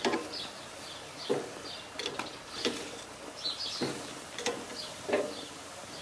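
Metal grill tongs clacking against the grill grate several times, about once a second, as watermelon slices are set down and turned. Birds chirp in the background.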